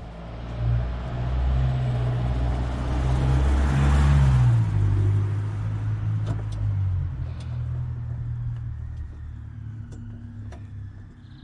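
A car driving past. Its engine and tyre noise swell to the loudest point about four seconds in, the engine note drops in pitch as it goes by, and then it fades away.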